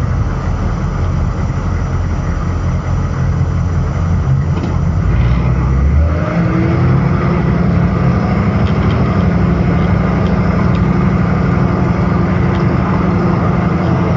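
Humvee's diesel V8 running as it drives, with a steady low rumble. From about six seconds in, a whine rises and then holds steady.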